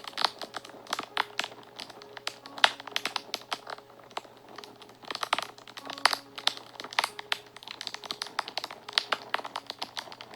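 Fire crackling and popping: irregular sharp pops and snaps, several a second, over soft background music with a few faint held notes.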